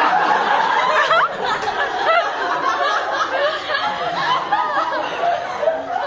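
A roomful of students laughing and exclaiming together, starting suddenly and loud, with excited chatter mixed in.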